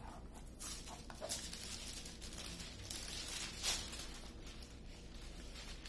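Hand rubbing and pressing a thin plastic cover sheet flat over a diamond painting canvas, making several soft crinkling swishes as air bubbles are pushed out from under the film.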